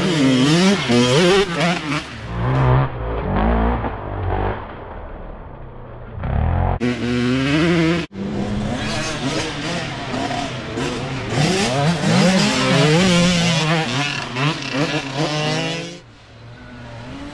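Dirt bike engines revving up and down as riders pass, the pitch rising and falling with throttle and gear changes. The sound cuts out for an instant about eight seconds in.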